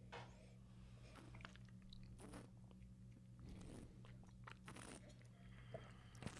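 Near silence with faint, scattered mouth sounds of people sipping and tasting red wine, over a steady low hum.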